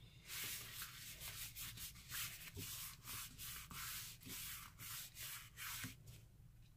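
A dozen or so soft rubbing strokes, about two a second, as paint is worked with a bubble-wrap stamp over the card.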